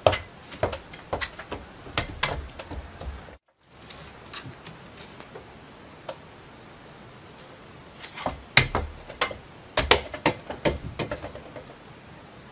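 Quick, irregular clicks and knocks of a cat pawing and scrambling at a small toy basketball hoop and ball, with a short break about three and a half seconds in and the loudest run of knocks in the last few seconds.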